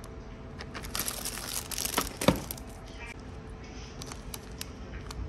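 Plastic packaging being handled: rustling and crinkling of a small resealable plastic bag and clicks of a clear plastic box of nail charms. One sharp click a little over two seconds in is the loudest sound.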